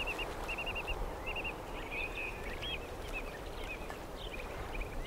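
Outdoor ambience: a small songbird singing short, high trilled phrases again and again over a steady bed of background noise.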